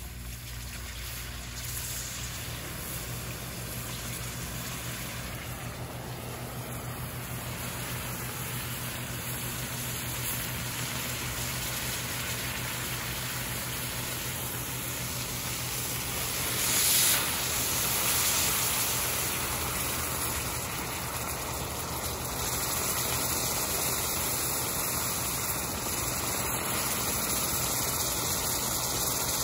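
Water from a garden hose spraying and splashing onto a freshly poured aluminum casting and the ash around it, the hot metal sending up steam. It is a steady rush of water with one brief louder surge about 17 seconds in.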